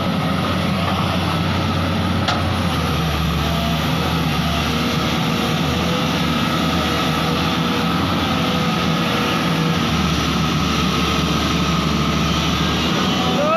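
Excavator's diesel engine running steadily under work, with a single sharp click about two seconds in.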